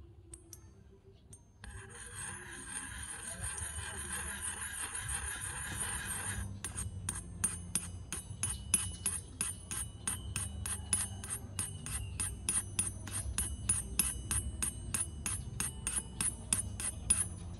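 Small metal spoon scraping and clinking against a miniature metal wok in a quick, even rhythm of about three strokes a second, starting about six seconds in. Before that, a steady hiss.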